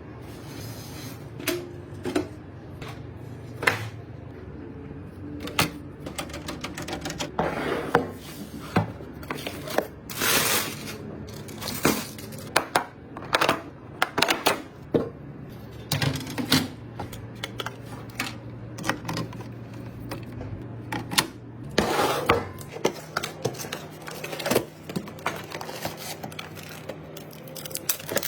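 Irregular clicks, clacks and light knocks of computer parts and cables being handled and fitted into a PC case, over a low steady hum.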